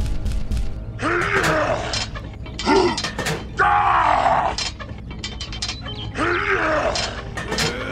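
A voice grunting and groaning with strain, in about five short bursts whose pitch rises and falls, as of heavy pushing effort. Background music with a steady beat plays under the first second and stops.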